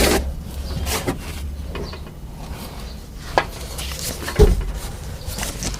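A few scattered knocks and light rubbing sounds from handling and moving about, the loudest knock about four seconds in, over a low rumble.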